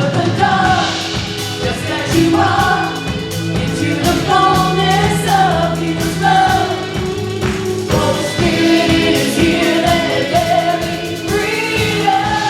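Live contemporary worship music: a band with several voices singing together over sustained keyboard chords and a steady beat.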